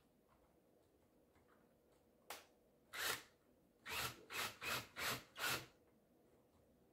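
Cordless drill driving a screw into a wooden board in short trigger bursts: a click, one brief burst about three seconds in, then five quick bursts in a row.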